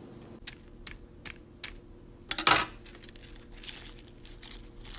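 Potato chips crackling and crunching as a hand handles them on a sandwich, with a few light clicks in the first two seconds and one loud crunching burst about halfway.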